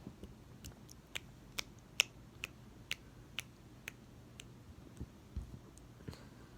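A run of faint, sharp clicks, about two a second and not quite even, over a faint steady low hum.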